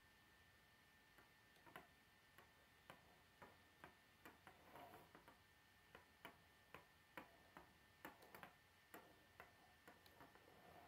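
Faint plastic clicking and ticking from a K'nex push car as its pump lever is worked by hand and it rolls on a wooden table, roughly two clicks a second.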